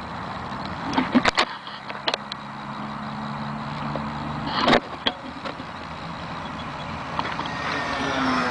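Electric brushless motors of a foam RC P-38 Lightning running in flight, a steady drone over a hiss, with a few sharp knocks about a second in and again near five seconds.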